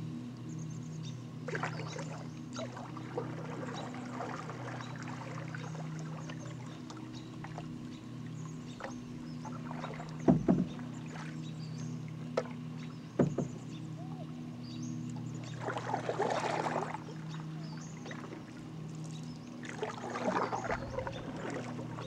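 Canoe paddling: the paddle swishes and splashes through the water in several bursts of strokes. Midway there are two sharp knocks about three seconds apart, the paddle striking the canoe hull, over a steady low hum.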